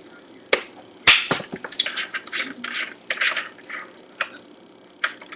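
A run of clicks, knocks and short scraping, rustling sounds of things being handled, the loudest a sharp knock about a second in.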